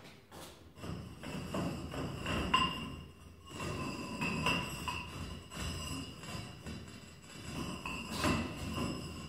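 Large fired ceramic rings knocking and clinking against each other as they are handled, each knock setting off ringing tones that hang on and overlap.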